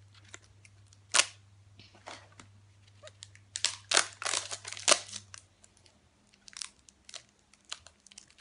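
Plastic wrapping on an LOL Surprise ball crinkling and tearing in short, scattered crackles as a layer is opened. The crackles are densest about four to five seconds in.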